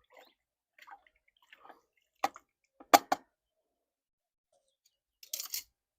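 Small water sounds from a bucket as a hot lock pick is cooled in it: light drips and sloshing, a few sharp clicks about two and three seconds in, and a short splash near the end.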